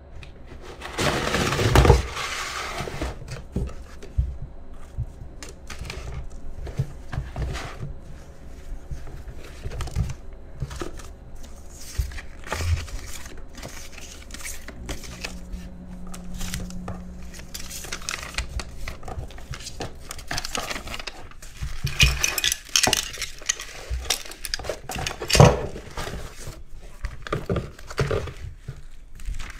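Cardboard box, paper cards and a notebook being handled on a tabletop: rustling and crinkling paper with scattered taps and knocks as things are lifted out and set down. A louder rustle comes about two seconds in, and another stretch of rustling with sharp knocks comes near the end.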